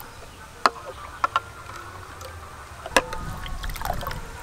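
Metal spoon stirring milkshake in a glass bowl, clinking sharply against the glass four times over a low swish of liquid.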